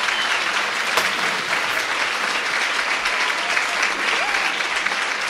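Audience applauding: dense, steady clapping, likely a crowd-applause effect laid over the end credits.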